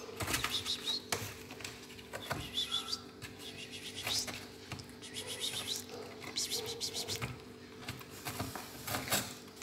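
Kittens scrambling and clawing at the sides of a cardboard box, giving a run of short scratches and scrapes, with a few brief high-pitched chirps mixed in.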